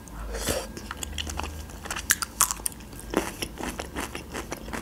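A person biting into and chewing a soft boiled pelmeni dumpling in cream sauce: a run of short, irregular mouth clicks.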